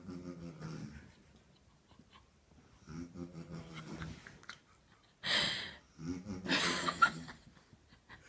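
A woman snoring in her sleep: rasping snores on each breath in, about every three seconds, with a loud, noisy breath out between the second and third snores.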